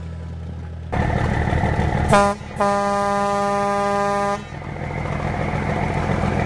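The 1955 Peterbilt 281 'Duel' truck's engine running, heard louder once inside the cab. Its horn gives a short toot about two seconds in, then a long, steady blast of nearly two seconds.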